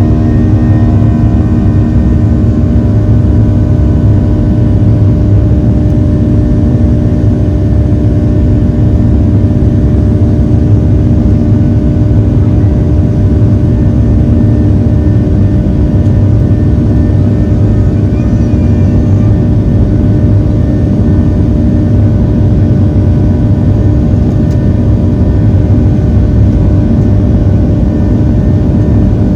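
Boeing 737-700's CFM56-7B turbofan engines at takeoff thrust, heard from inside the cabin: a loud steady drone with a buzzing tone. Its higher tones fade over the first few seconds.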